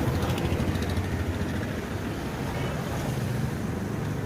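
Steady low rumble of street traffic, with a faint short horn-like tone about halfway through.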